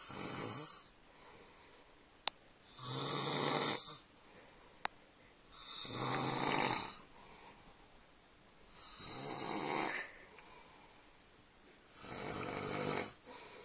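A man snoring loudly in his sleep: five snores about three seconds apart, each lasting about a second. Two short, sharp clicks fall between the first few snores.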